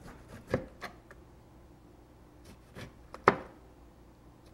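Chef's knife slicing a lemon into thin rounds, the blade tapping down on the cutting board a few times at uneven intervals, with the sharpest taps about half a second in and just after three seconds.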